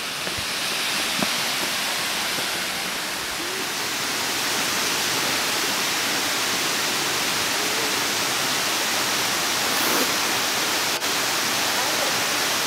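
A steady rushing hiss of stream water pouring over a rock slab at the lip of a small waterfall.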